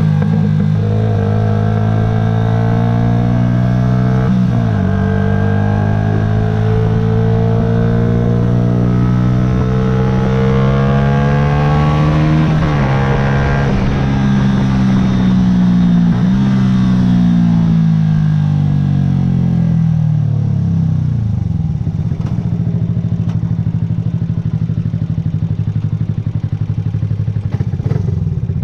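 Yamaha YZF-R125's single-cylinder four-stroke engine running under way: the revs rise and fall with throttle and gear changes, then wind down to a steady idle after about twenty seconds.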